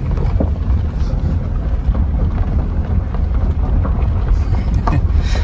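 Dodge Grand Caravan minivan rolling slowly over a gravel track: a steady low rumble of engine and tyres, with wind noise on the microphone.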